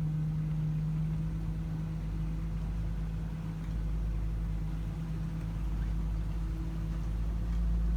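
Engine of a 1998 Sea Ray 26-foot motorboat running with a steady drone over a low rumble.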